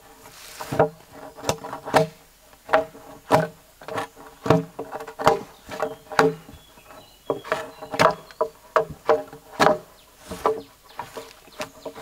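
Repeated chopping or hammering strikes on wood, a little under two a second and fairly even, each with a short hollow ring.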